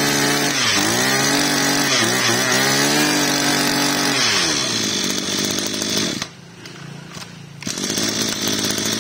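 Maruyama 23cc two-stroke brush-cutter engine being revved by hand at the throttle. The revs climb and dip several times, fall back after about four seconds, drop to a lower idle for a second or so, then pick up again to a steady run near the end.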